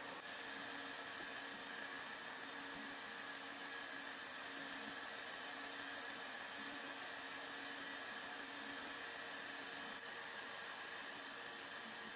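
Steady, unchanging whooshing hiss of a running machine or fan, with a faint constant hum under it.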